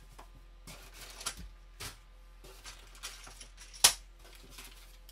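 Clear plastic bag of miniature sprues rustling and crinkling as it is handled and set down on a cutting mat, with a sharp tap a little under four seconds in.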